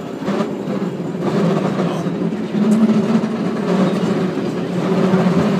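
San Francisco cable car riding along its rails, heard from on board: a steady low rumble and rattle, with a few faint clacks.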